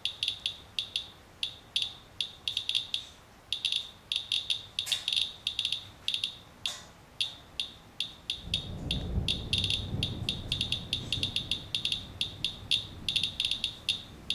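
Radiation Alert Inspector Geiger counter chirping at an irregular, rapid rate, several counts a second. It is counting radiation from a rain-wiped paper towel sample through a plastic sheet laid over it as an alpha blocker. From about eight seconds in, a low rumble of handling noise joins the chirps.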